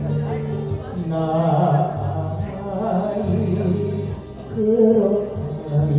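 A man singing an enka ballad over a karaoke backing track.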